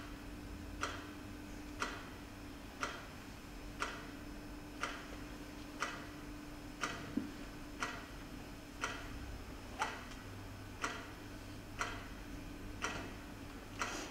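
Steady clock-like ticking, one sharp tick about every second, with one extra off-beat tick about seven seconds in, over a steady low hum.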